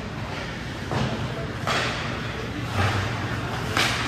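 Ice hockey play in a rink: about four sharp knocks and slaps from sticks, puck and boards, each ringing briefly in the arena.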